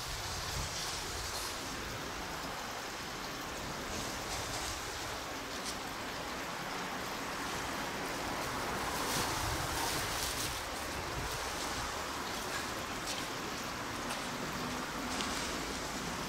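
Steady outdoor noise haze of wind on the microphone, swelling slightly about nine seconds in, with a few faint clicks.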